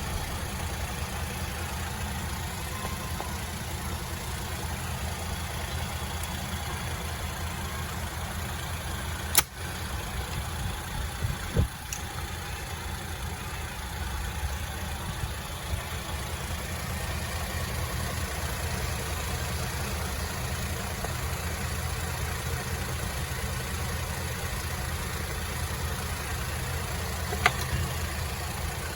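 BMW 320i GT engine idling steadily with the A/C compressor running on a freshly recharged system. A few sharp clicks come about nine, twelve and twenty-seven seconds in.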